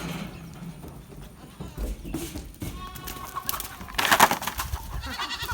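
Goats bleating, with the loudest bleat about four seconds in.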